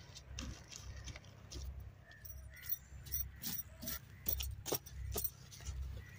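Hands digging and scraping in dry, stony soil, with clods and small stones clicking and knocking, most often in the second half. A low steady rumble lies underneath.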